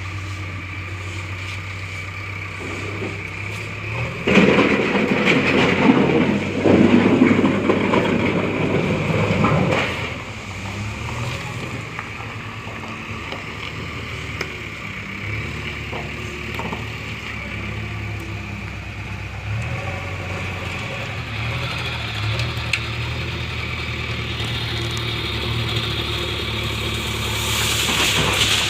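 Diesel engine of a JCB backhoe loader running steadily. About four seconds in, a loud pour of ballast stones lasting some six seconds as the bucket empties into a tractor trolley, then the engine runs on alone and rises a little near the end.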